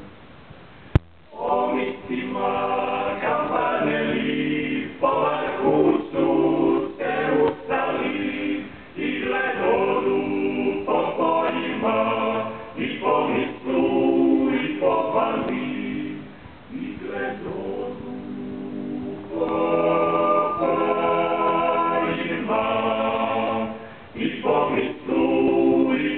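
Male a cappella group singing in several-part harmony in the Dalmatian klapa style, phrase by phrase with short breaks between phrases. A single sharp click comes about a second in, just before the singing starts.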